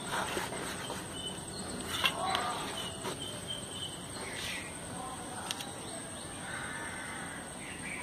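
Outdoor background noise with a steady high whine and faint bird chirps, broken by a few light clicks and taps as a bowl and other items are set down on a dried areca nut leaf sheath.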